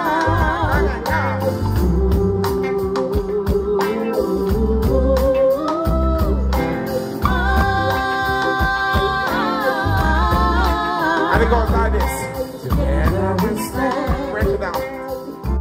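Live reggae band with a heavy, pulsing bass line and a man singing through the PA.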